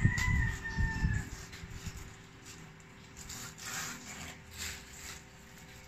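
Hand rubbing on a corrugated cardboard cat scratch pad, loudest in the first second or so, then softer crinkling of a plastic bag.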